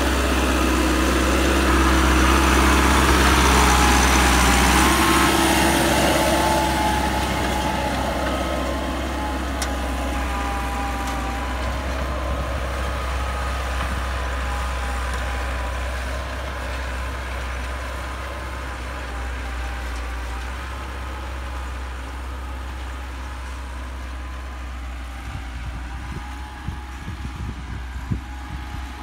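Massey Ferguson 385's four-cylinder diesel engine working under load, pulling a plough through the soil in first gear at about 1800 rpm. It is loudest as the tractor passes close by in the first few seconds, then fades steadily as it moves away.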